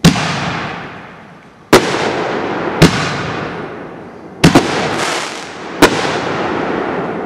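Black Cat Diablo aerial firework shells going off: six loud bangs in about six seconds, two of them almost together, each trailing off into a fading hiss.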